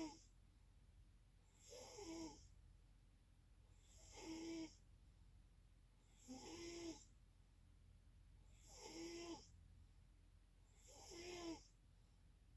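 Faint, regular snoring: a short snore about every two and a quarter seconds, six in all.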